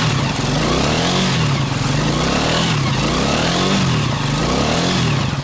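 ATV engine revving up and down over and over, its pitch rising and falling about once a second.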